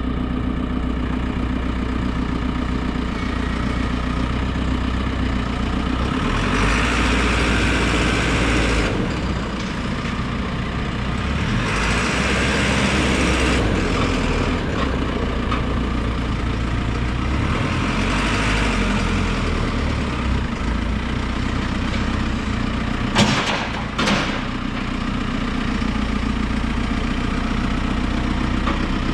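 JCB 4CX backhoe loader's diesel engine running at idle, just after starting; three times it rises to a harsher, fuller sound for a couple of seconds before settling back. Two sharp knocks, about a second apart, come in the last third.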